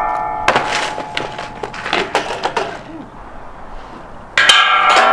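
BMX bike striking steel, giving a loud ringing metallic clang that fades, then a run of sharp knocks and rattles of the bike and tyres landing. About four and a half seconds in, another loud ringing clang follows.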